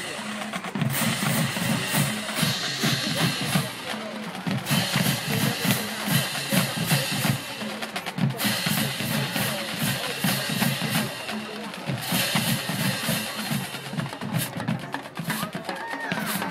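A marching drumline playing a cadence: rapid snare drum strokes and rolls over a pulsing bass drum pattern, in phrases with brief breaks between them.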